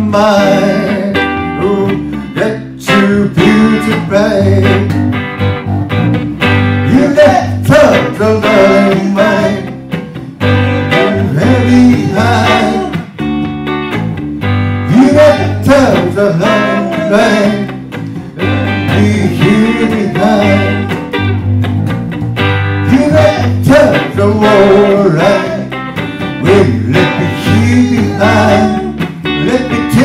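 Live blues-style song: electric guitar accompaniment with a man singing into a microphone.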